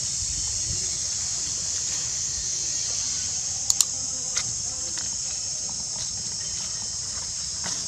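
Steady, high-pitched droning of an insect chorus, with a couple of sharp clicks in quick succession about halfway through and another shortly after.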